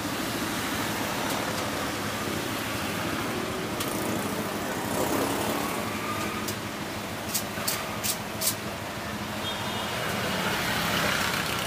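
Steady street traffic noise, with four sharp clicks in quick succession a little past the middle.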